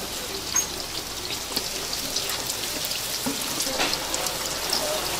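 Hot oil sizzling and crackling in a wide steel fryer as flat round dough patties deep-fry, with scattered sharp pops, a couple of them louder about half a second and nearly four seconds in.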